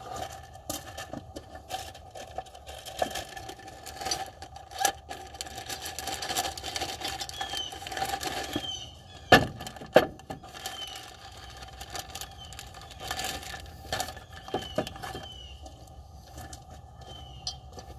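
Hand tools and bolts clinking, scraping and knocking on metal while the smog pump pulley is being fitted, with two sharp knocks about a second apart roughly halfway through.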